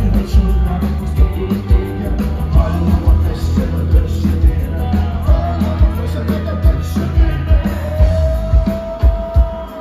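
Live rock band playing through a PA, heard from the audience: electric guitar, bass, congas and a drum kit on a steady beat, with a male singer. Near the end a long note is held.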